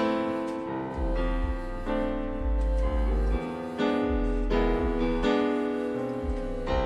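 Background music: keyboard chords over a low bass line, changing every half second or so.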